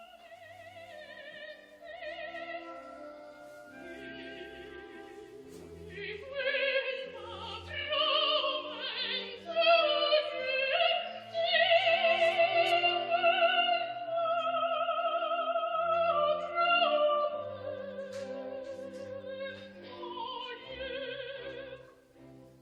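Opera music: a singer with a wide vibrato over orchestral accompaniment. It starts softly, swells about six seconds in and fades near the end.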